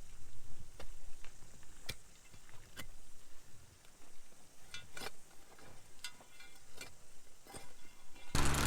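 Scattered faint clicks and knocks, then near the end an engine comes in loud and runs steadily.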